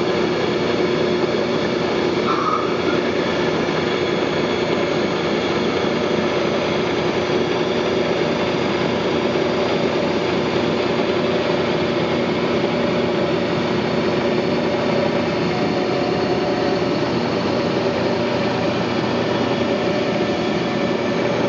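Four-axis CNC mill's spindle running steadily, its polishing stone working the inside cutting edge of a nail clipper's top jaw, a continuous machine hum with a few steady tones in it.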